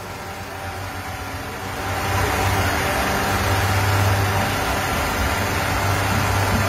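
Busy street traffic: vehicle engines running with a steady low hum and road noise, getting louder about two seconds in.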